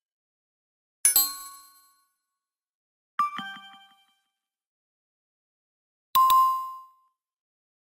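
Three separate short chime sound effects of the kind used as right/wrong answer feedback in quizzes. Each is a bright ding that fades within about a second, with silence between them; the last has one clear ringing tone.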